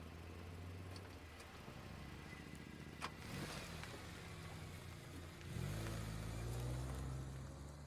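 Car engine running steadily, with a sharp click about three seconds in; about halfway the engine note rises and grows louder as the car accelerates past, then fades near the end.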